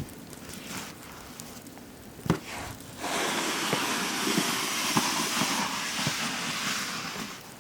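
Snow shovel scraping: a couple of short knocks, then a long, steady scrape with crackles lasting about four seconds from around three seconds in.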